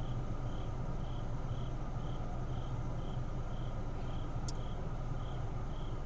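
A cricket chirping in an even rhythm, about two short chirps a second, over a steady low hum. One sharp click about four and a half seconds in.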